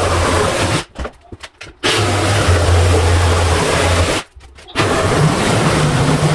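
Power saw running and cutting into the wooden front edges of the stair steps. It stops briefly about a second in and again around four seconds, then starts up again each time.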